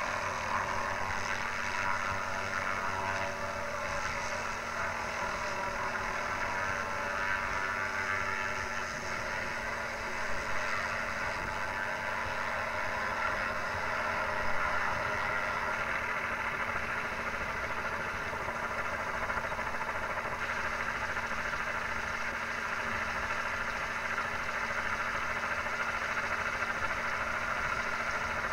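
Steady running of a small turbine helicopter and the engine-driven aerial tree saw hung beneath it. The rotor, turbine and the saw's spinning circular blades blend into one even mechanical sound.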